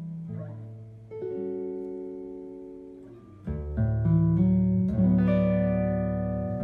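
Archtop guitar in a low CGDGBE tuning, played through a Henriksen Blu amplifier and Ray cabinet: chords are plucked and left to ring and fade. About three and a half seconds in, deep bass notes from the low C and G strings come in under the chords and the playing gets louder.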